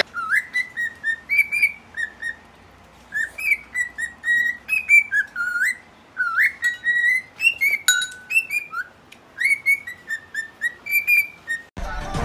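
Cockatiel whistling a run of short, clear notes, several sliding upward in pitch, in quick phrases broken by brief pauses. Music comes in just before the end.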